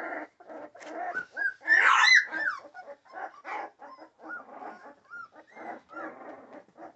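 Young American Pit Bull Terrier puppies whimpering and squeaking in many short cries, with one louder cry about two seconds in.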